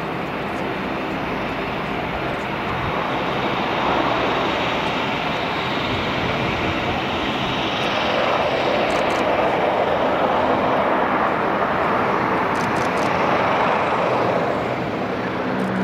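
Saab 2000's two Allison AE 2100 turboprops and propellers running as the airliner rolls out on the runway after landing. The sound grows louder as it comes closer and eases slightly near the end.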